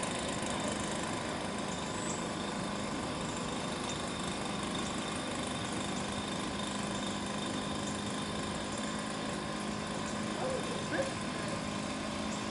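A blower's motor running steadily at constant speed, pushing a canoe along as an improvised air boat, with a steady hum and faint constant tones.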